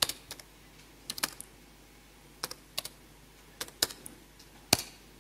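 Keys clicking on a computer keyboard as a command is typed, in short irregular clusters of a few keystrokes. The last and loudest keystroke near the end is the Enter key that runs the command.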